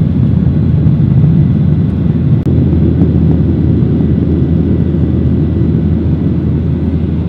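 Jet airliner cabin noise in flight: the deep, steady rumble of the engines and rushing air heard from a window seat, with a faint steady high whine over it.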